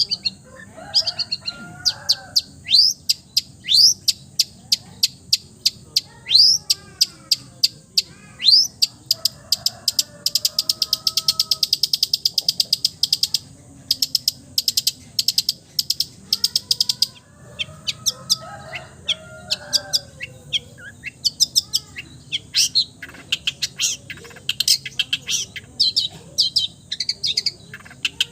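Long-tailed shrike (cendet) singing a rapid string of sharp, high chips, with a very fast buzzy trill about ten seconds in and lower warbling phrases between. It is a song full of imitated calls of other birds.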